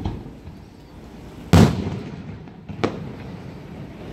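Aerial firework shells going off: a loud boom about a second and a half in, then a smaller, sharper bang about a second later.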